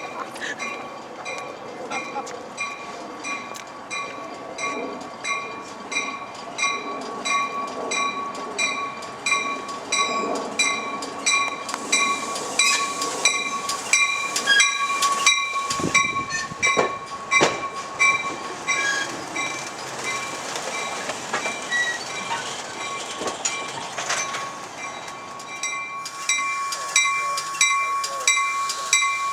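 Railroad grade-crossing bell dinging about twice a second while a passenger train rolls past. The train's wheel and rail noise, with sharp clicks over the rail joints, is loudest in the middle and fades again near the end.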